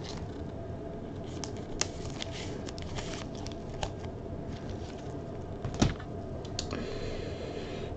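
Faint scattered clicks and rustles of trading cards and their packaging being handled, over a steady low hum; the sharpest click comes near six seconds in.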